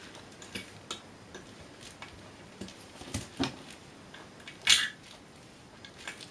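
Small screwdriver prying at the rim of a bent-in aircraft instrument case: scattered light clicks and scrapes of tool on case. The loudest is a sharp scrape about three quarters of the way through.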